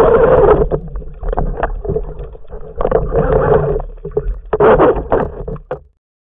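Water sloshing and bubbling around an underwater camera mounted on a speargun, just below the surface, coming in surges about every second and a half. It cuts off suddenly near the end.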